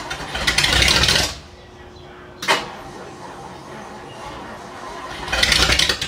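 Long-dormant Ford Thunderbird V8 being started: two loud bursts about a second long as it cranks and fires, one near the start and one near the end, with a single sharp pop between them.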